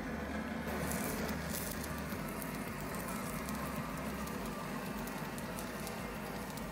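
Stick-welding arc crackling steadily as a nickel-iron 55 (ENiFc-CI) rod welds mild steel plate onto a cast iron brake drum. The crackle starts just under a second in.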